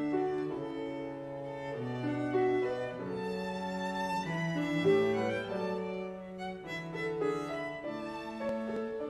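Classical instrumental music played live: a melody of held notes over lower accompanying notes.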